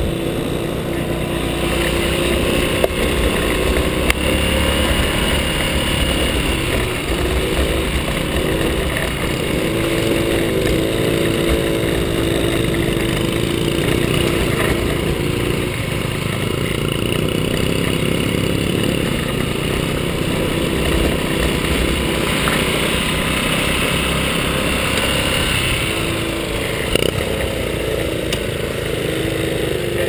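Small trail motorbike engine running under way, heard from the bike itself, its note rising and falling as the throttle changes, over a steady rumble with a few short knocks.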